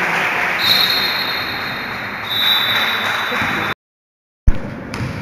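Noisy sports-hall crowd and game sound at a basketball match. A high, steady whistle tone sounds for about three seconds. Near the end the sound cuts out for under a second and comes back with a sharp click.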